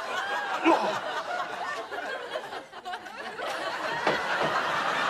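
Studio audience laughing. The laughter dips briefly a little past halfway, then swells again.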